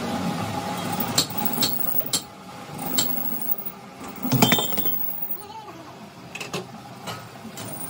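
Metal clinks and knocks in a wheel-hub machining shop, about half a dozen sharp strikes scattered through, the loudest about four and a half seconds in, over a steady workshop hum.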